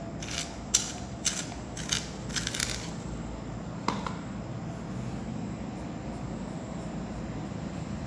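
A drawing pen scratching on paper in about five short strokes, followed by a single click, over a steady low background hum.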